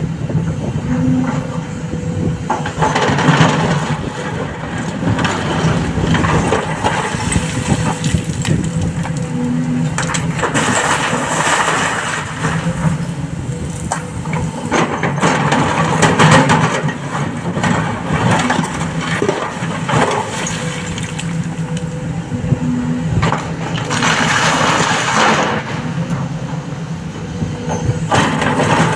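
Hydraulic excavator loading a dump truck: a steady diesel engine drone under load, with loud rattling crashes of rock and stone every several seconds as buckets are dug and dumped.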